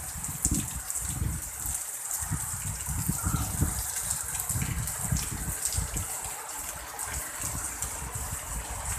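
Heavy, pouring rain: a steady hiss, with uneven low rumbles of strong wind gusting through it.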